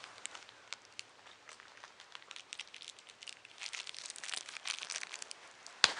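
Plastic packaging crinkling and rustling as small parts, likely screws, are handled, with a sharp click just before the end.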